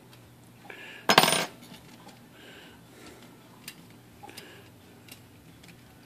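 A sharp metallic clatter about a second in, ringing briefly, then a few faint light clicks while the nut that mounts a Royal typewriter's mainspring is being loosened.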